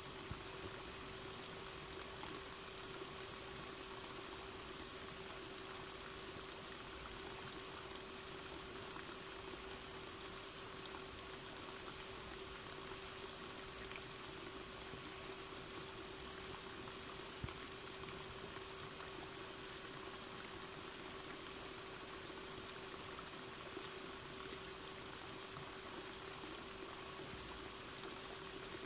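Steady, even hiss with a faint constant hum underneath, and one soft tap about seventeen seconds in.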